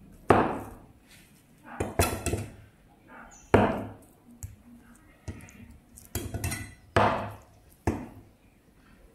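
Chinese cleaver cutting down through soft tofu onto a wooden chopping board. About ten uneven strokes sound, each a sharp knock of the blade on the board with a short metallic ring.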